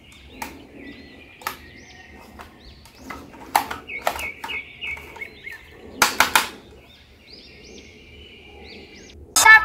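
Sharp plastic clicks and knocks from a plastic robot toy being handled and switched on, loudest in a few quick clusters a third and two-thirds of the way in. Small birds chirp faintly in the background, and loud music cuts in just before the end.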